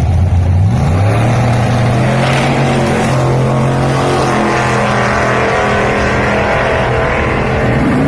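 The 400 cubic-inch small-block V8 of a 1976 Chevy Vega drag car running loud, its pitch climbing in the first second and then holding steady, with a dip and a rise again near the end.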